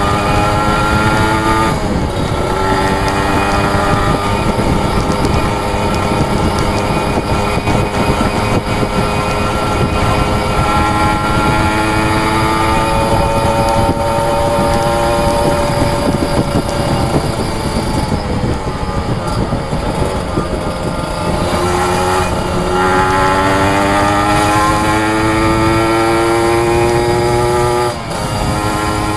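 Kawasaki Ninja RR two-stroke single-cylinder engine under hard acceleration while riding, its pitch climbing steadily and then dropping back sharply at gear changes, several times over.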